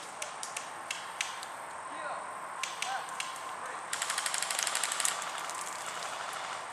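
Airsoft guns firing: scattered single shots in the first few seconds, then a rapid full-auto burst lasting about a second, about four seconds in.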